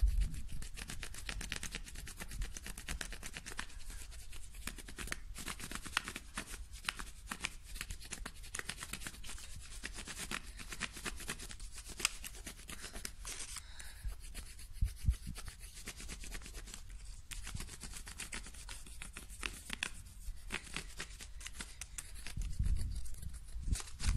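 Wax crayon scribbled rapidly back and forth on paper: a steady scratchy rubbing made of many quick strokes.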